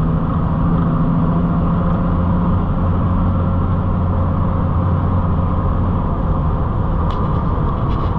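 Cab interior sound of a 1994 Dodge Ram 2500's 5.9 Cummins inline-six turbodiesel cruising at about 60 mph: a steady low engine drone mixed with road noise, with a couple of light ticks near the end.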